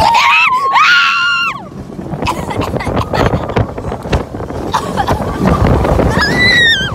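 A young woman screaming on an amusement ride: a long, high scream at the start and another near the end. In between, wind buffets the microphone and the ride rattles.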